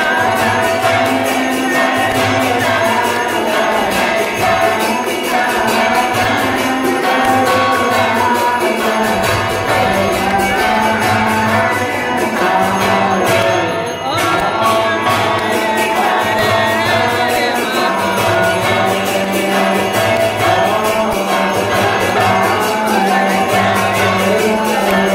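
Hindu temple aarti to Lord Shiva: fast, steady clanging of bells and cymbals over a low beat about once a second, with devotional singing.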